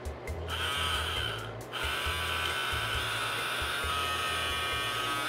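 London Drugs Premiere LD830 beard trimmer running, its small motor and blades giving a steady buzz that starts about half a second in, stops briefly just before two seconds, then runs on steadily. It is being run to work freshly added clipper oil into the blade end after its switch contacts were cleaned.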